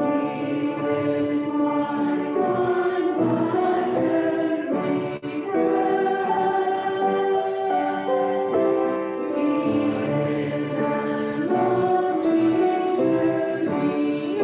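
Worship music: a choir or group of singers with keyboard accompaniment, singing a hymn.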